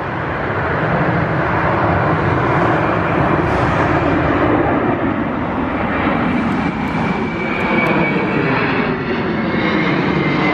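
A twin-engine wide-body jet airliner passing low overhead, its turbofan engines making a loud, steady jet noise. In the second half a fan whine comes in and slowly falls in pitch as the aircraft goes past.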